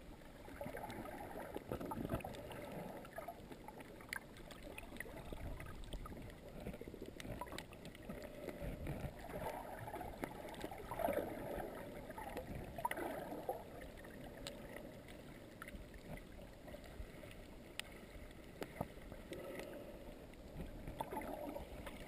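Muffled water swirling and gurgling, heard through a camera held underwater while snorkeling, with scattered faint clicks.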